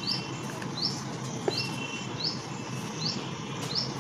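Short high rising chirps repeat about every two-thirds of a second over a steady low hiss, with one small click about a second and a half in.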